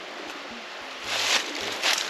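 Dry forest-floor leaves and woody debris rustling and crunching in two short swells, one about a second in and one near the end.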